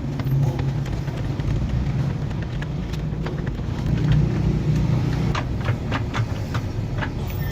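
Low, steady rumble of a running engine, with a string of light clicks in the second half.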